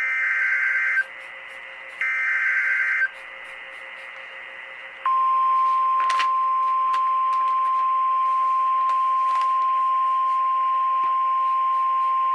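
NOAA Weather Radio alert signal: two one-second bursts of warbling SAME data tones, a second apart. About five seconds in, the steady single-pitch 1050 Hz warning alarm tone begins and holds. The alarm tone announces that a new severe weather warning is about to be read.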